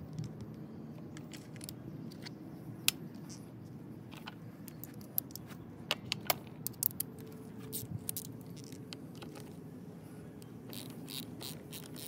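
Small metal clicks and clinks of hand tools and battery terminal hardware being worked, with a quick run of ratchet-wrench clicks near the end, over a steady low hum.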